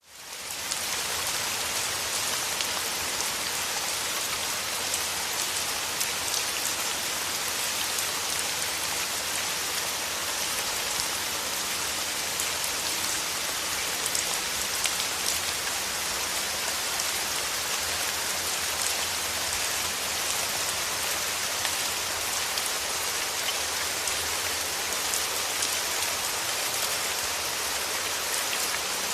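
Steady rain falling on a surface, a dense even hiss with many fine drop patters, fading in during the first second.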